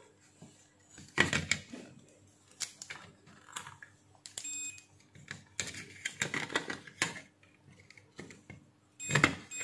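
Clicks, taps and rustling as test probes and a charger circuit board are handled on a workbench. A short electronic beep from the digital multimeter sounds about four and a half seconds in.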